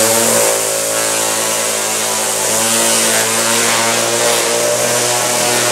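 String trimmer's small engine running steadily at high speed while its spinning nylon line whips against a hard-coated polycarbonate door panel.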